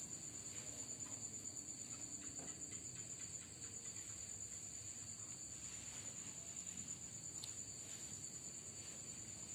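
Crickets trilling steadily at night: a continuous high-pitched chirring that holds the same pitch throughout.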